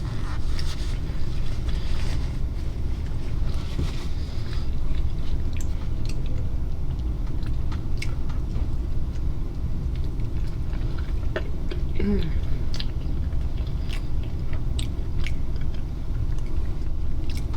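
Close-miked chewing and biting of fish tacos, with scattered sharp mouth clicks and a short falling hum about twelve seconds in.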